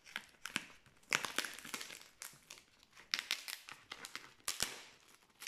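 Scissors cutting into the printed packing tape wrapped round a cardboard parcel, with the tape and wrapping crinkling and tearing in irregular crackles and clicks as it is worked open by hand.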